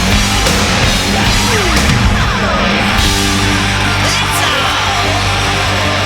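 Loud heavy rock music with electric guitar, playing steadily.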